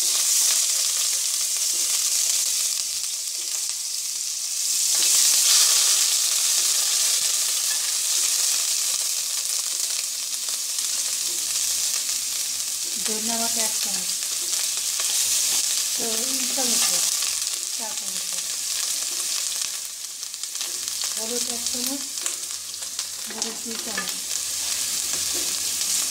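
Onion and garlic paste sizzling in hot oil in a kadai as a wooden spatula stirs it: the masala being fried down. The sizzle grows louder about five seconds in.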